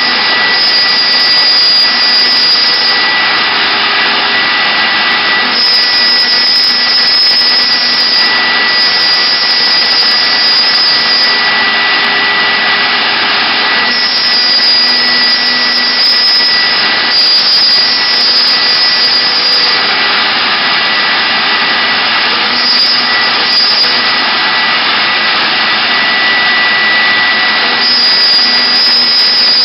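CNC router spindle running with a steady high whine while its cutter mills wood, the cutting noise shifting every few seconds as the tool moves along its path.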